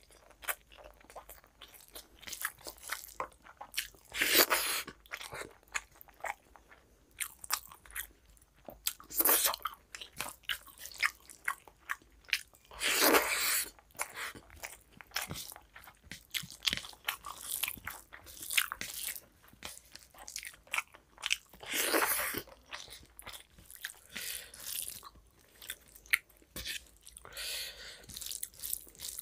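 A person eating rice with mutton and egg curry by hand, close to the microphone: wet chewing and mouth clicks throughout. A few louder, longer sounds stand out about four, nine, thirteen and twenty-two seconds in.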